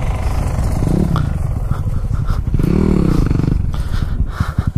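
Yamaha WR250F dirt bike's single-cylinder four-stroke engine revving up and back down twice at low speed, then dropping to a steady pulsing idle near the end.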